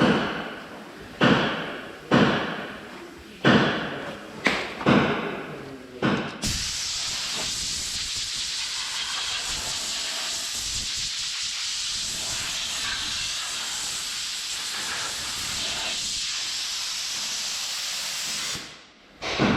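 A series of knocks about one a second, then a steady loud hiss of compressed air from an air blow gun that cuts off abruptly near the end, typical of blowing sanding dust off a filled panel.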